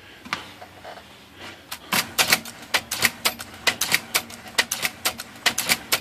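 IBM Selectric electric typewriter being run as a test: a few light clicks, then from about two seconds in a quick, irregular string of sharp mechanical clacks as the machine cycles and the carrier moves along the platen. The test checks the carriage return after a sticking margin-rack latch, the cause of the missed returns, has been freed with lacquer thinner.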